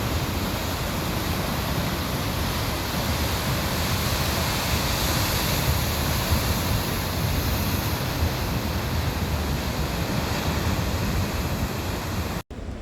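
Steady rushing noise of ocean surf along a rocky coast, with wind buffeting the microphone; it cuts off suddenly near the end.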